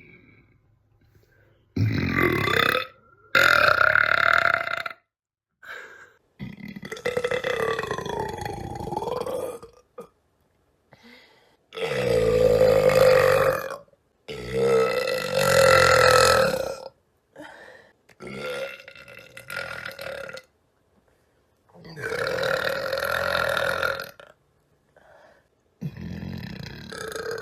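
A woman belching over and over: about eight long, drawn-out belches of one to three seconds each, with a few short burps and brief silent pauses between them.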